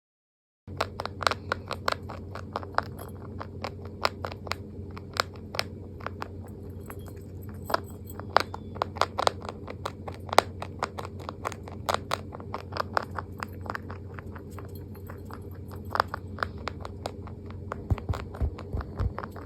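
A rabbit chewing its food: a quick run of sharp crunching bites, several a second, over a steady low hum. It begins after a moment of silence.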